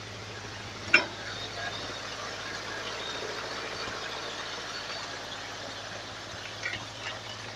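Forestry skidder's engine idling steadily, with one sharp knock about a second in and a few faint ticks.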